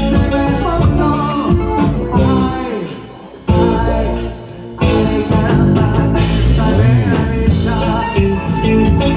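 Loud music with instruments and singing, dipping in loudness twice a little past the middle.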